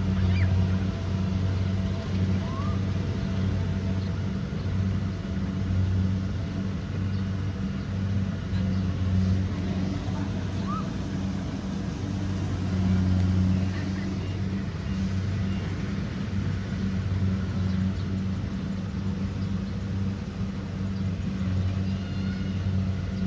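Kubota DC70 Pro combine harvester's diesel engine running steadily with a low drone, its loudness swelling and easing a little.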